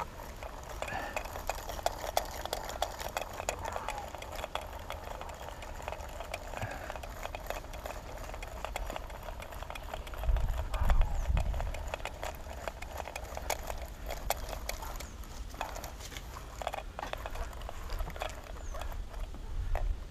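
Irregular light clicking and rustling throughout, with wind buffeting the microphone in a low rumbling gust about ten seconds in.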